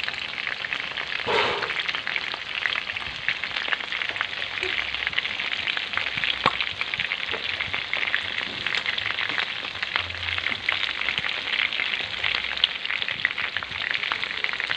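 Chicken pieces shallow-frying in oil in a pan, sizzling steadily with a dense crackle of small pops. There is a brief louder burst about a second and a half in.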